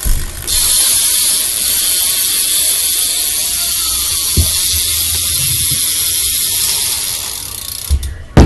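BMX rear hub (Animal Javelin) freewheeling as the back wheel spins, its ratchet pawls clicking so fast they make a loud, even buzz that starts about half a second in and stops near the end, followed by a couple of thumps.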